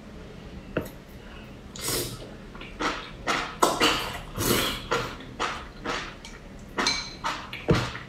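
Close-miked eating sounds: noodles and spicy broth slurped from a bowl, then wet chewing and lip smacking in uneven bursts. There are a couple of sharp clicks, about a second in and near the end.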